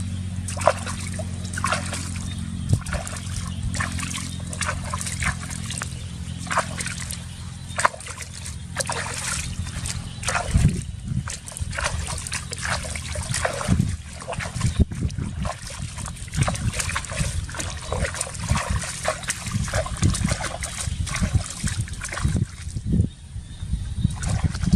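Water splashing and sloshing over and over in quick, irregular strokes, as shallow field water is thrown out by hand. A steady low hum runs under it for the first half and then stops.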